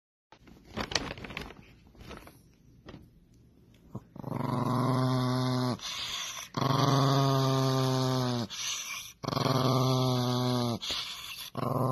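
Small chihuahua-type dog growling in long drawn-out growls, three of them each about a second and a half, with a fourth starting at the end. A few clicks and rustles come before the first growl.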